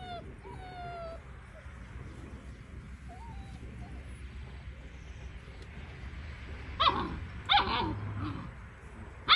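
Dobermann puppies at play: a few short, falling whines at the start, then three loud, sharp yelping barks, two close together about seven seconds in and one more at the end.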